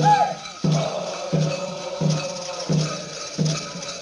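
Background music with a steady low drum beat, about three beats every two seconds, over a steady held tone.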